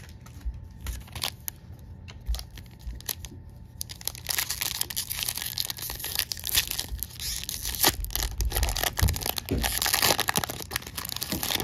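Foil wrapper of a Topps baseball card pack being torn open by hand. Light scattered crinkles come first, then loud continuous crinkling and tearing from about four seconds in, stopping suddenly near the end.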